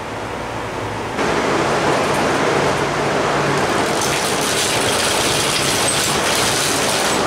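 Motobecane moped being pedal-started on its stand: a steady whirring from the pedals, chain and spinning rear wheel, getting suddenly louder about a second in. The engine is turning over but not firing, which the owner puts down to too much compression.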